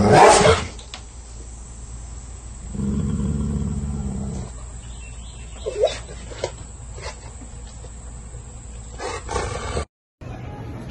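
Yellow Labrador retriever barking and growling at its own reflection in a mirror: a loud bark at the very start, a low growl lasting about a second and a half a few seconds in, then a few short sharp sounds. The sound cuts off suddenly near the end.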